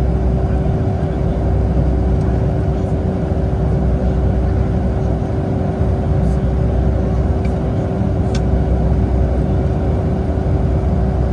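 Steady cabin noise inside a Boeing 757: a deep, even rumble of engines and airflow with a steady hum held throughout, and a few faint clicks.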